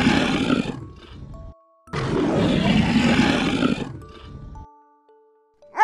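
Lion roaring twice: a long roar that fades out about a second and a half in, then a second roar of about two and a half seconds. Soft background music plays underneath.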